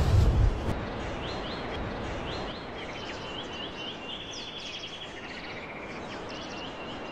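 Birds chirping in rapid repeated trills over a steady outdoor hiss. A deep rumble fades out in the first second.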